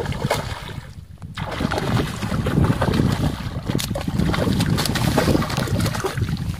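A hooked red-bellied pacu (rupchand) thrashing at the water's surface, giving repeated splashes, over a steady rumble of wind on the microphone.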